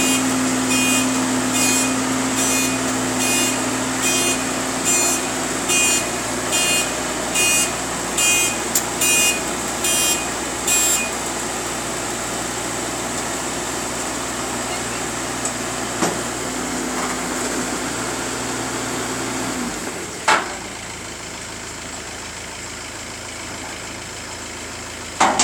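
Vehicle reversing alarm beeping about every 0.8 s for some eleven seconds over a steadily running engine. The engine sound drops away about 20 s in, followed by a single sharp knock.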